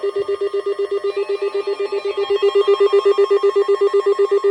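Weather alert radio sounding its alarm: a loud, rapid beeping on one pitch, about ten beeps a second, set off by an incoming severe thunderstorm warning.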